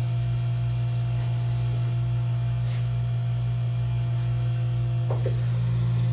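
Steady low electrical hum, with nothing else clearly standing out.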